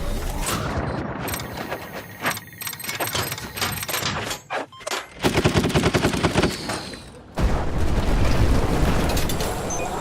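Layered sound effects of rapid gunfire: dense bursts of shots, with a fast run of close-spaced shots about halfway through.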